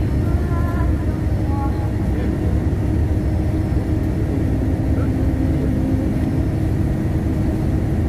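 Steady low rumble of a tour bus's engine and road noise, heard from inside the passenger cabin.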